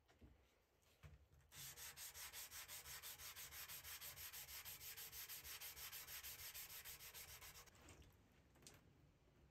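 220-grit sandpaper rubbed by hand along a quenched steel knife blade cut from a saw blade, in quick even back-and-forth strokes, about five a second. It starts a second and a half in and stops a couple of seconds before the end.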